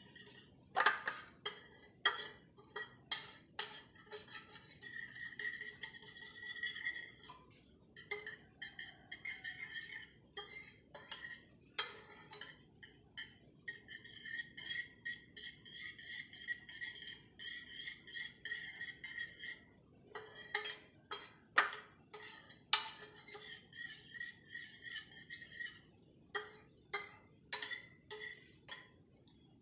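A metal spoon repeatedly clinking and scraping against a steel dish, the dish ringing between the strikes, in bursts with short pauses.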